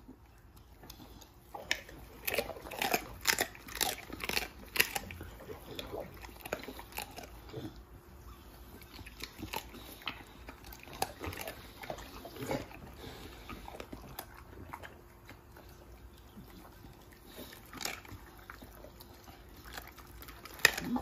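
American Bully dog biting and crunching raw poultry with bone: a run of crunching bites in the first few seconds, then scattered bites, and one sharp bite near the end.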